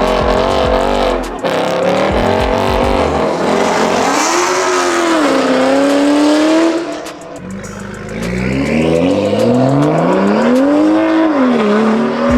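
Car engine revving hard in repeated surges, pitch climbing and falling, with tyres screeching partway through, as in a street drift. The revs drop off about seven seconds in, then climb again and hold high near the end.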